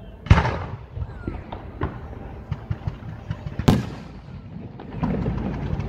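Aerial fireworks: two loud shell bursts, the first about a third of a second in and the second near the four-second mark, each followed by a rumbling echo, with smaller pops between them. From about five seconds in comes a denser crackle of many small reports.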